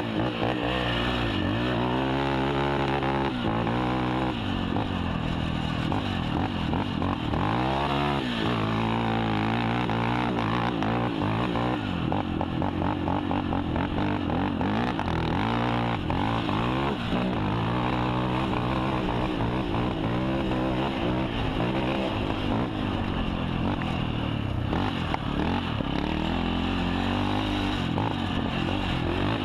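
KTM 450 XC quad's single-cylinder four-stroke engine being ridden hard, its pitch climbing and dropping again and again as the throttle is worked.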